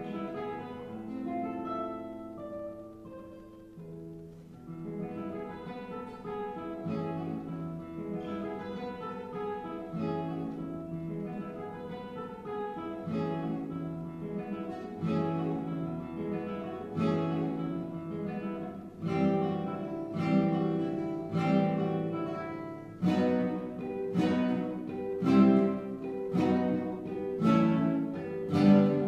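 Solo classical guitar playing: plucked melodic notes at first, then loud struck chords about once a second in the second half, growing louder toward the end.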